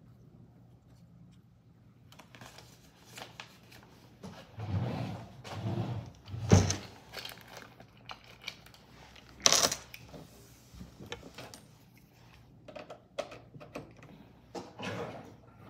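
Handling noises at a desk: a plastic snack packet rustling and crinkling, with scattered sharp clicks and knocks, the loudest about six and a half and nine and a half seconds in, over a faint low hum.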